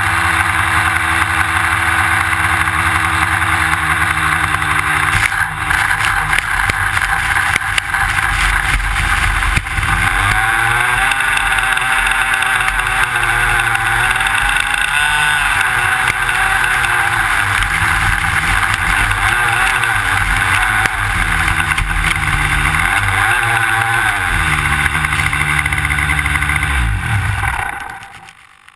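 Jett .90 two-stroke glow engine of an RC plane running close to the microphone, mostly at low revs with its pitch wavering up and down, with a few short knocks in the first ten seconds. The engine stops about a second before the end.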